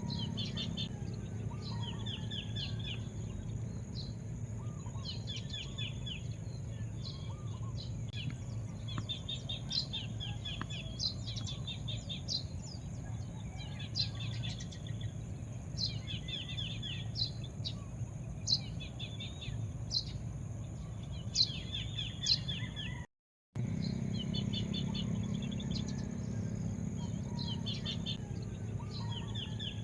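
Small birds chirping and trilling in short repeated phrases, over a steady low rumble and a faint steady high drone. The sound cuts out completely for a moment about three-quarters of the way through.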